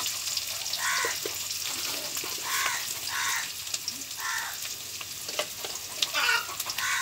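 Sliced onions, green chillies and bay leaves sizzling in hot oil in a blackened karahi, with a spatula clicking and scraping against the pan. Several short pitched calls sound in the background.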